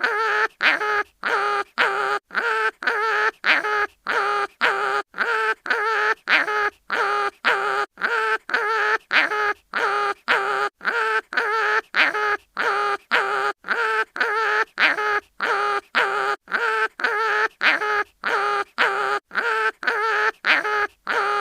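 Cartoon animal crying-in-pain sound effect, short wavering whimpering cries repeated over and over, about two a second with short gaps between them.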